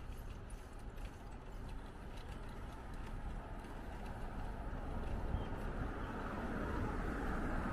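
Steady rushing of wind on the microphone and city road traffic noise, heard from a moving bicycle, growing gradually louder over the last few seconds.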